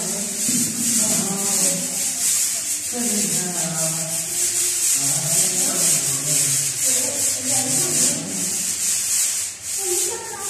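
Stiff brooms brushing dust off plastered walls and a ceiling, a run of quick, rhythmic swishing strokes.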